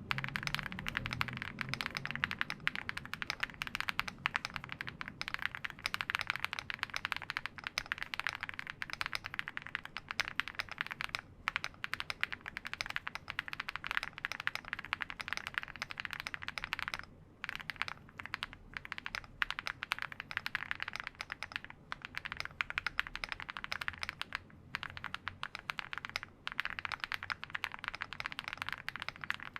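Continuous fast typing on a Mammoth75 mechanical keyboard with KNC Green Jacket linear switches: a dense stream of keystroke clacks, broken by a few brief pauses.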